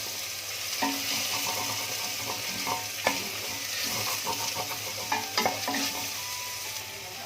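Chopped ginger and garlic sizzling as they fry in cooking oil and sesame oil. A utensil stirring them clicks and knocks against the pan with a short ring several times, most sharply about three seconds in and in a cluster around five seconds.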